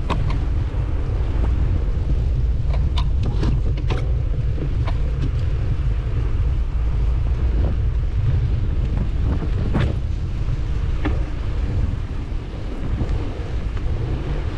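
Wind buffeting a GoPro's microphone on a moving bicycle, a steady low rumble, with a few sharp clicks and knocks scattered through it, the loudest about ten seconds in.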